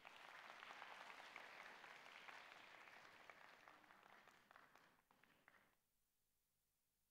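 Theatre audience applauding, a dense patter of clapping that thins out after about five seconds, with a few last claps before it dies away.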